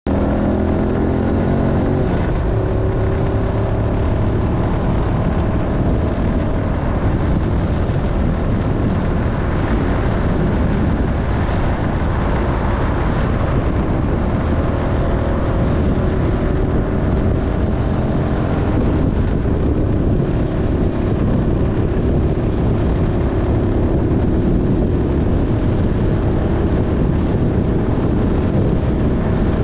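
Motorcycle engine running under way, its pitch rising and falling with the throttle, under heavy wind noise on the microphone.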